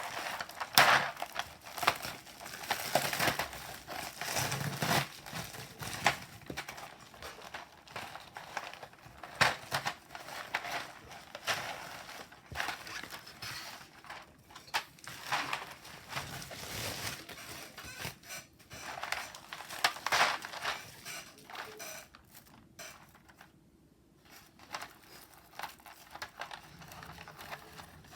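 Plastic packaging being handled and crinkled while keycaps are unboxed, an irregular run of rustles and sharp crackles that eases off for a few seconds near the end.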